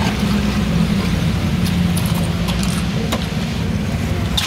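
Ice in an iced fruit drink clinking against a plastic tub as a plastic scoop stirs and ladles it, with a few light sharp clicks, over a steady low rumble of road traffic.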